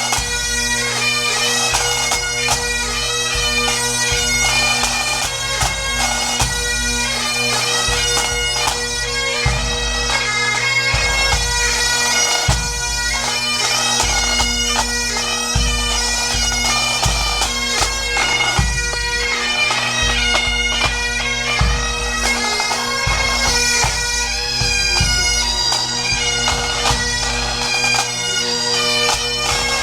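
Music: a melody played over steady held drone notes, with low beats underneath.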